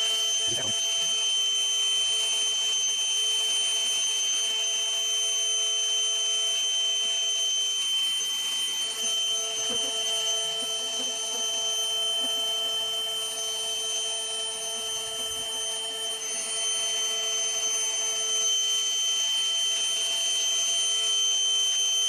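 Bee vacuum running steadily with a high motor whine and rushing air while its hose is held to the comb, sucking bees off the hive.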